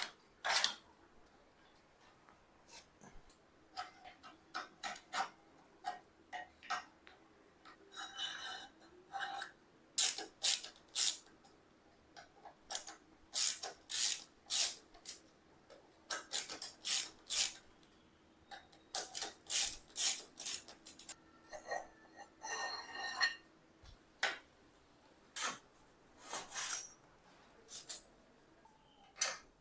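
Hand tools working on metal bicycle parts: an irregular run of sharp clicks and taps, with a few short scraping strokes.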